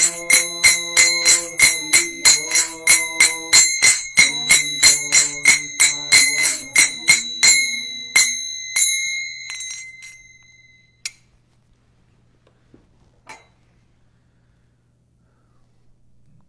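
The closing bars of a kirtan: brass hand cymbals (karatalas) are struck about three times a second over sustained harmonium chords. Both stop about eight seconds in and the cymbals ring out, then two last single cymbal strikes come near the end.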